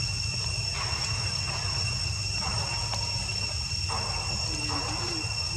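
Insects droning in a steady, high-pitched chorus over a constant low rumble, with a few brief rustles.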